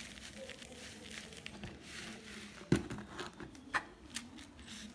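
Loose potting substrate pouring from a plastic pot into a planter, a dry rustling and pattering of soil. About two and a half seconds in there is one sharp knock, the loudest sound, followed by a few lighter taps as the soil is pressed down.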